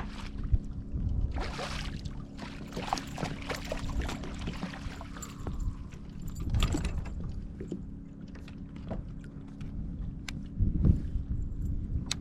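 Water splashing and sloshing around a kayak, with scattered knocks and clicks over a low steady hum.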